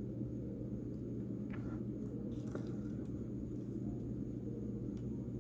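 Steady low room hum with a few faint taps and rustles as tarot cards are handled on a table.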